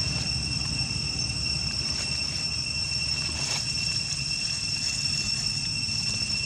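Steady high-pitched insect drone, two constant tones, over a low rumble that eases off about halfway through.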